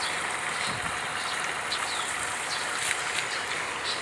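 Steady rushing of river water, with a few faint short high chirps.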